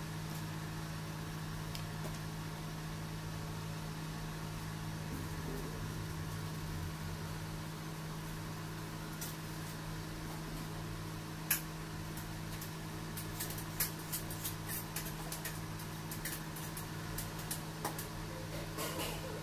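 Steady low machine hum, with a scattering of light sharp clicks and taps in the second half.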